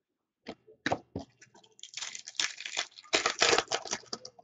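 A Topps Chrome baseball card pack's foil wrapper being torn open and crinkled. A few light taps come first, then from about two seconds in a dense crackling tear.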